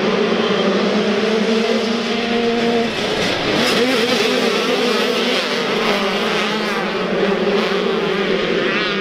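A pack of youth motocross dirt bikes launching off the starting gate at full throttle, many engines revving together. The steady high-revving drone breaks into rising and falling revs about three seconds in as the pack charges into the first turn.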